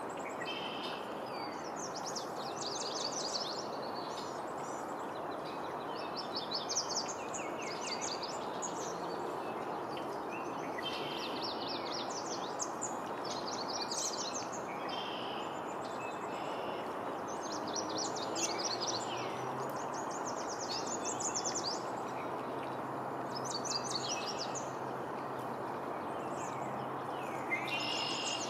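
Steady rush of a shallow river flowing over stones, with songbirds in the surrounding woods singing short, high, trilled phrases over and over.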